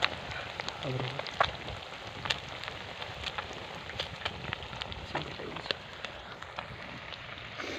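Small fish deep-frying in bubbling oil in a pan over a wood fire: a steady sizzle with frequent sharp, irregular crackles and pops.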